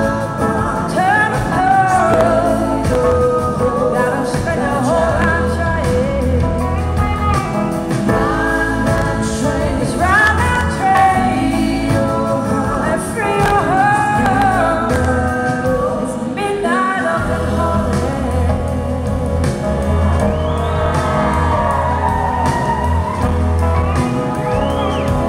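A live soul-blues band: a woman sings the lead vocal over electric guitar and a full band. The bass drops out for a moment about two-thirds of the way through, then comes back.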